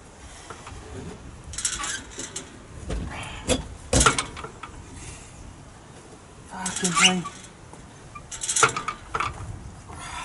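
Irregular clunks, knocks and scraping as a tractor seat is manhandled out through the cab's back window, knocking against the frame. The sharpest knock comes about four seconds in, with further clattering clusters a few seconds later.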